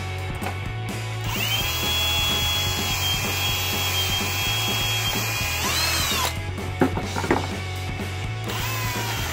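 Cordless drill motor whining steadily as it bores into a wooden block. Its pitch rises briefly before it stops about six seconds in, a couple of sharp clicks follow, and the drill starts up again near the end.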